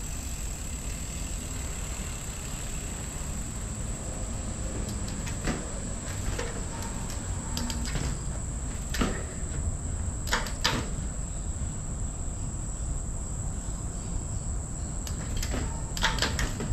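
Full-suspension mountain bike clunking and knocking a handful of times as it is pivoted on its front wheel, with a cluster of knocks near the end. A steady low rumble and a constant high-pitched hum lie underneath.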